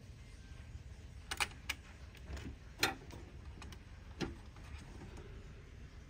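A handful of sharp clicks and snaps as a screwdriver pries a coin-cell CMOS battery out of its metal spring-clip holder on a desktop motherboard, the loudest snap about three seconds in. The battery is being removed for replacement.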